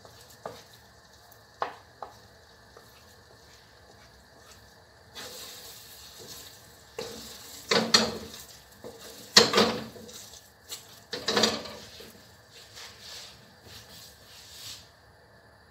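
Two wooden spatulas stirring and scraping thick, sticky biko in a non-stick wok. A couple of light knocks come first, then a stretch of scraping with three loud clatters in the middle, dying away near the end.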